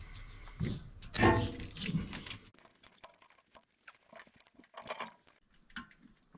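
Scattered light clicks and taps of hand tools on metal while a rotary cutter's gearbox and blade assembly are taken apart, with a brief squeak about a second in.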